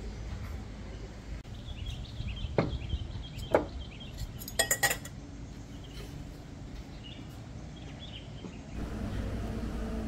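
Crockery and cutlery on a table: two sharp knocks, then a quick run of ringing clinks about halfway through. Faint bird chirps and steady outdoor background noise sit underneath, and the background grows louder near the end.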